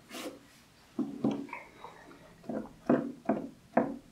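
Grooming tools and hands knocking and rubbing on a rubber-matted grooming table: about seven short taps and scrapes, loosely spaced.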